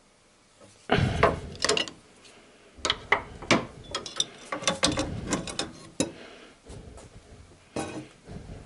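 Irregular metallic clicks and knocks of a wrench working on the camshaft pulley bolt of a Honda D17A engine as the bolt is broken loose, with the pulley braced by a holding tool. The loudest knocks come about a second in.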